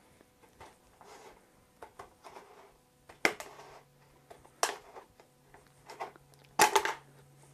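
Heavy-duty scissors cutting through a plastic rain gutter: a few sharp snips and crunches of the blades through the plastic, the loudest about three seconds in and a longer one near the end.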